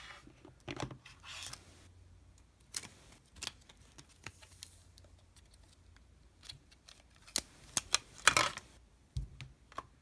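Clear plastic packaging tray and its peel-back flap being handled: scattered clicks and crinkles, with a longer burst of crackling about eight seconds in as the iPod Touch is pulled free.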